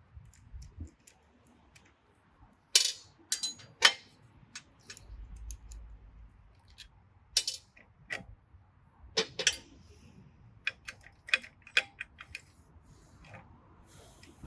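Sharp metal clinks and clicks of a spanner and socket working on the handle bolts of a log splitter. The loudest knocks come about three and four seconds in and again around seven and nine seconds, followed by a run of quicker small ticks.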